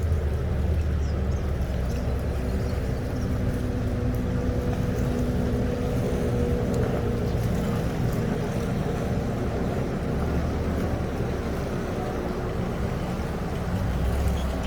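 An engine running steadily with a low rumble and a faint steady hum over it.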